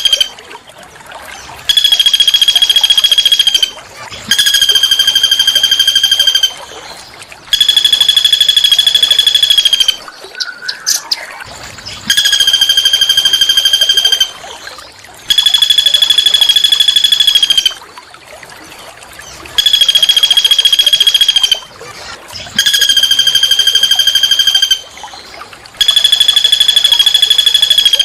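A small songbird singing a rough, buzzy trill over and over, each phrase about two seconds long with short pauses between, about eight times. A brief, softer rising chirp sits in one of the gaps near the middle.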